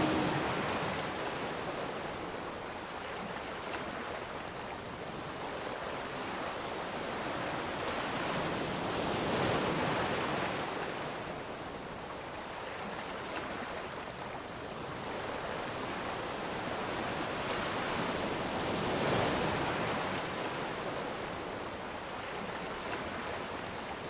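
Sea surf: a steady wash of waves that swells twice, about ten seconds apart.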